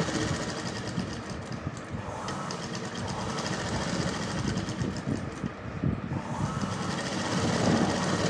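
A sewing machine stitching steadily along a folded fabric edge, its needle going in a fast, even run of strokes that grows a little louder near the end.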